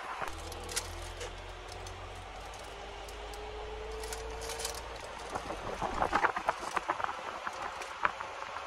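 Inside a moving taxi: a low road and engine rumble with a faint whine slowly rising in pitch as the car picks up speed. Scattered clicks and rattles run through it, thickest about six seconds in.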